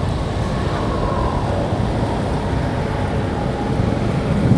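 Steady low rumble of motor-vehicle traffic outdoors, even throughout with no revving or sudden sounds.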